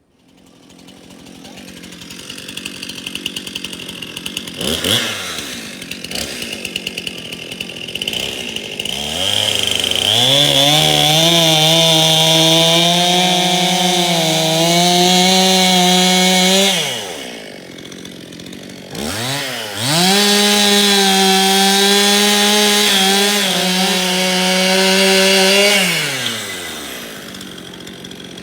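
Small gasoline engine on a portable sawmill, idling and then revving up to full speed twice. Each time it holds a high, steady pitch for about six or seven seconds before falling back to idle.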